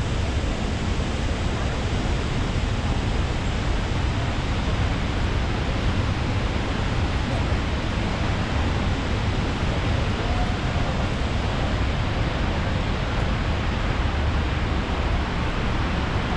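Steady rush of water from Niagara's Horseshoe Falls: an unbroken wall of noise with a heavy low rumble.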